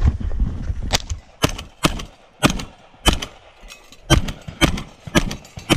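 A rapid string of shotgun shots, about nine in all, roughly half a second apart, with a slightly longer pause about halfway through.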